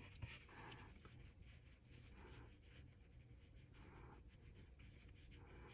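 Faint, soft scratchy swishes of a makeup brush stroking across the skin of the face, several short strokes a second or two apart, over near-silent room tone.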